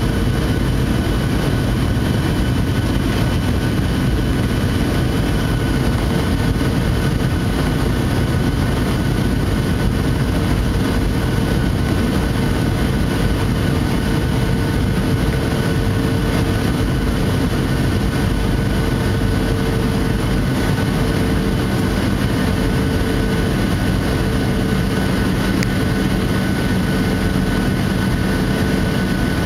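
Steady engine drone and rushing air inside an airliner cabin during the landing approach, with several steady whining tones; a lower hum comes in about two-thirds of the way through.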